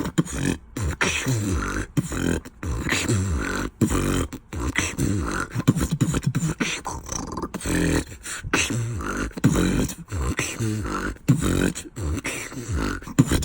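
Beatboxing: a single performer making a quick run of rhythmic mouth and throat sounds, with deep bass tones and sharp clicks, cut by brief breaks.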